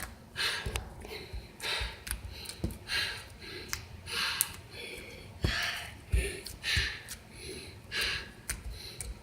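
A person breathing hard and loudly close to the microphone in a quick run of heavy, noisy breaths, more than one a second, with a few sharp clicks among them.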